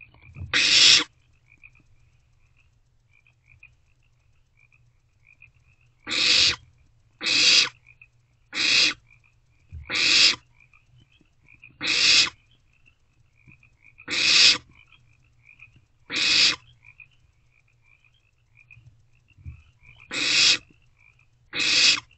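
Barn owlets giving rasping hissing screeches, about ten bursts each roughly half a second long, one to a few seconds apart: the begging call of barn owl nestlings.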